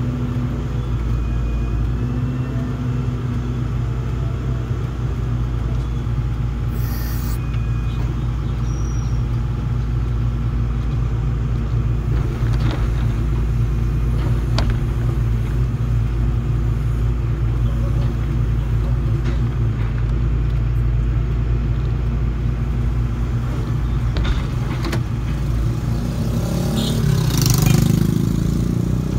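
Hydraulic excavator's diesel engine running steadily under load as the boom and bucket work, with a few knocks of the bucket and a louder scrape of soil and stones for a moment near the end.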